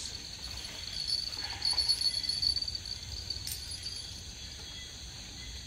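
Crickets chirping steadily in a high continuous trill, with a faint low hum underneath.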